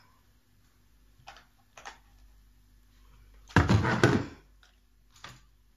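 Household handling noises: a few light knocks, then a louder clatter and rustle about three and a half seconds in, from a plastic tray of mung bean sprouts and a chair being moved.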